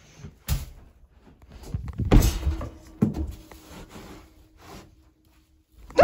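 Knocks, thumps and rustling from someone moving about inside a small wooden hide while handling the camera. The sharpest thumps come about half a second, two seconds and three seconds in, with a faint steady hum in the second half.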